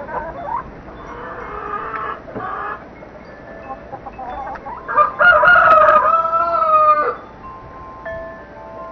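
Rooster crowing once, a loud call of about two seconds that starts about five seconds in, slightly falling at the end, with softer hen calls before it. A wind chime rings faintly near the end.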